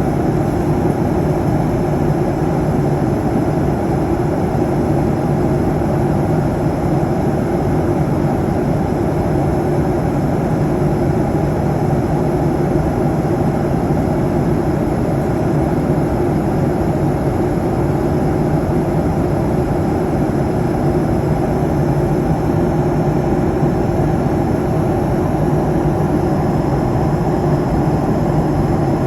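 Steady drone of an airliner cabin in cruise flight: engine and rushing-air noise with a low hum, unchanging throughout.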